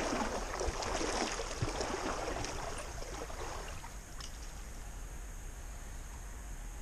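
Small stream running, a steady rush of flowing water that is a little louder for the first few seconds and then settles lower.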